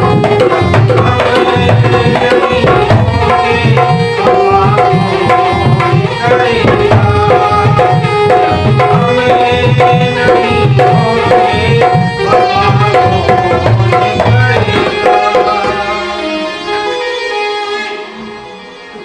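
Instrumental passage of a Hindi ghazal: tabla keeps a steady rhythm under sustained melody instruments. The drumming stops about three-quarters of the way through and the music fades down.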